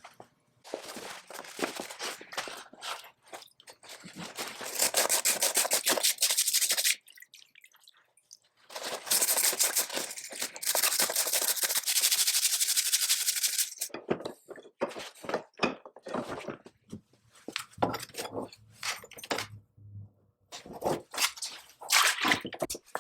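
Workshop handwork on metal parts: two long bursts of rapid scraping or brushing strokes, with separate knocks and clinks between them.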